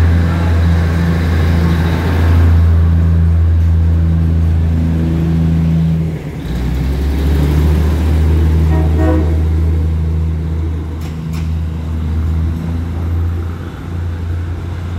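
Diesel railcar train pulling away. Its engines drone low and steady, the note shifting lower about six seconds in and slowly fading as it moves off. A short horn toot sounds about nine seconds in, and two brief clicks follow soon after.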